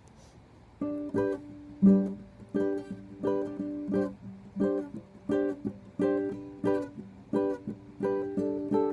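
An acoustic string instrument strummed in chords, opening a song. The strums start about a second in and come at a steady pace, about three strokes every two seconds.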